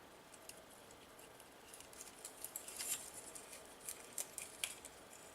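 Faint, scattered small clicks and ticks of tiny drone parts and hand tools being handled on a workbench, coming thicker about two seconds in.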